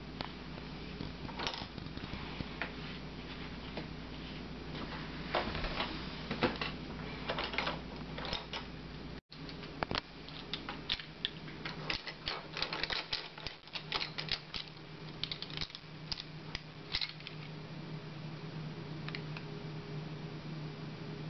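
Felt-tip marker pens colouring on paper: a run of quick taps and scratchy strokes, thickest past the middle, over a steady low hum. The sound drops out for an instant at a cut about nine seconds in.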